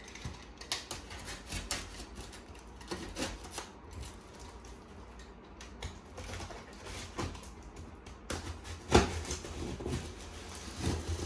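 Box cutter slicing packing tape on a cardboard box, with scattered scrapes, taps and clicks of the blade and hands on the cardboard, and one sharper knock about nine seconds in.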